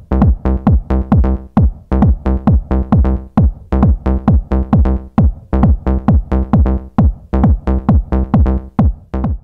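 Electronic dance music with a steady kick drum about twice a second over sustained bass notes.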